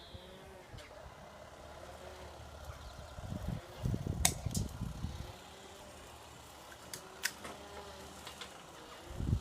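Two sharp snaps about three seconds apart from a spring-powered airsoft pistol firing, with a low rumble around the middle.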